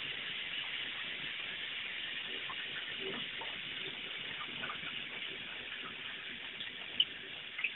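Steady hiss of recording noise, with a few light knocks and a sharp click about seven seconds in.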